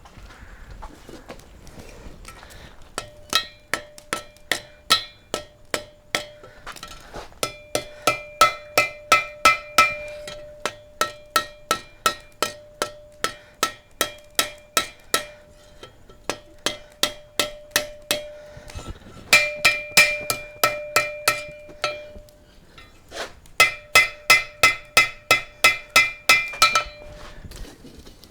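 Ball-peen hammer striking hot steel on an anvil in quick runs of blows, about three to four a second, each blow leaving a ringing anvil tone. This is the bar being drawn out with the toe and heel of the hammer.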